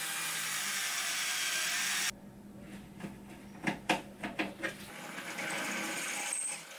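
Cordless drill running, boring a hole through a thin aluminium sheet, stopping suddenly about two seconds in. A few sharp knocks and clicks follow, then the drill runs again more quietly near the end.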